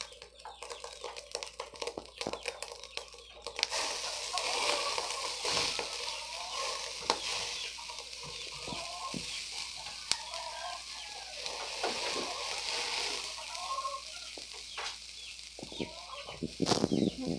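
Pork sizzling on a wire grill over an open fire, fat dripping into the flames, with a steady hiss that sets in a few seconds in and scattered sharp clicks.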